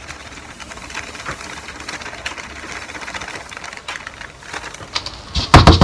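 Faint rustling and light clicking as a gloved hand handles a plastic cup of dry concrete mix, then a quick run of sharp knocks of the cup on a wooden tabletop near the end.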